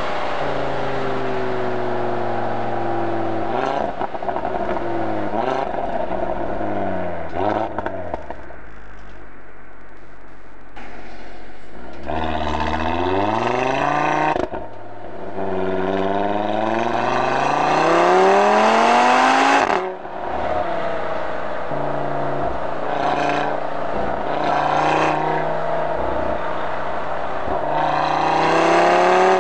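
Stock 2018 Audi TT RS's turbocharged five-cylinder engine through its sport exhaust with the valves open, heard at the tailpipes: the engine note falls at the start with several short blips, then rises steeply twice about halfway through, breaking off briefly between the two pulls, settles into a steady cruise with a few small throttle blips, and rises again near the end.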